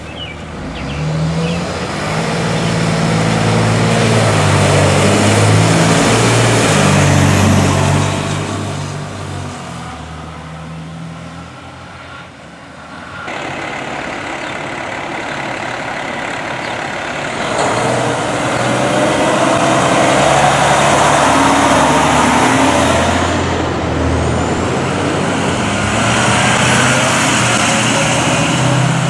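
Fire trucks' engines revving and pulling away as they drive past one after another, with road noise. The engine pitch climbs and drops in steps as they gather speed, and the sound breaks off and restarts with another truck about halfway through.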